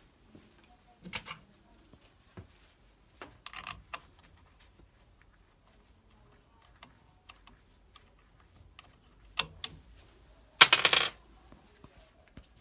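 Scattered metallic clicks and clinks of tools and parts being handled, with a few short clatters and a louder one near the end.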